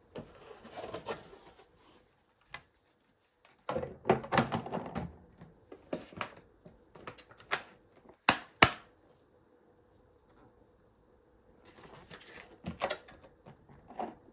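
Irregular small clicks, taps and rustling of household objects being handled, in several short clusters, with two sharp clicks in quick succession a little past the middle.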